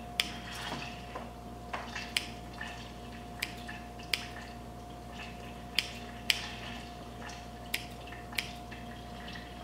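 Kitchen scissors snipping cooked chicken into small pieces, a short sharp snip about once a second at uneven intervals, over a faint steady hum.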